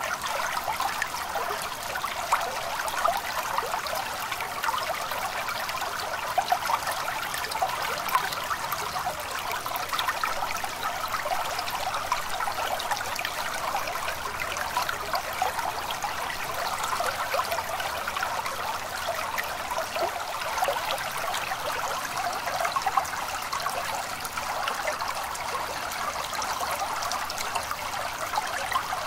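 A small stream running steadily, a continuous trickle full of small gurgles and splashes.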